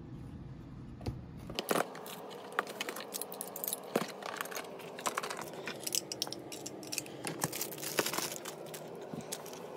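Plastic bags crinkling and small hard accessories clicking and clattering as they are gathered up and dropped into a cardboard box. The handling starts about a second and a half in and goes on in irregular clicks and rustles.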